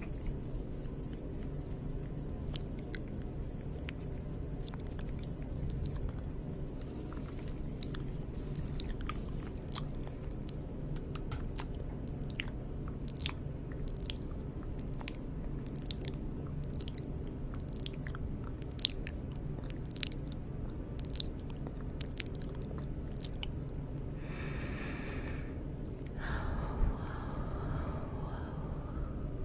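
Close-miked ASMR mouth sounds: irregular wet clicks and smacks, one or two a second, over a steady low hum. Near the end come a brief higher-pitched sound and then a breathy rustle.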